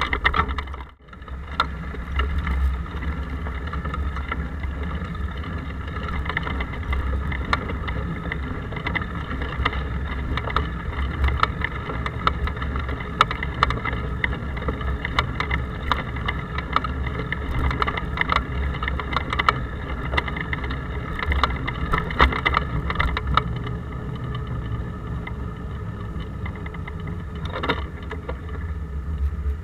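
Steady muffled rumble with fine rattling from a bike rolling along the road, heard through an action camera's waterproof case, with road vibration coming through the case. The sound drops out briefly about a second in.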